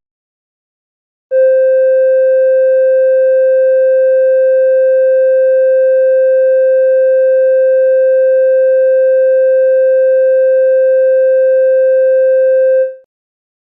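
Emergency alert attention tone: one loud, steady electronic tone of a single pitch. It starts about a second in, holds unchanged for roughly eleven seconds and fades out quickly near the end.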